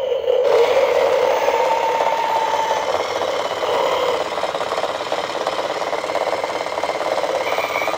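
Toy car's sound chip playing an electronic engine driving sound through its small speaker while its motor spins the wheels, a steady rattling run that cuts off suddenly near the end.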